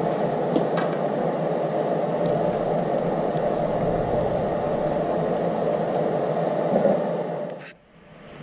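Steady whirring background noise with a few faint light clicks as bolts are fitted by hand into a cam phaser; everything fades out near the end.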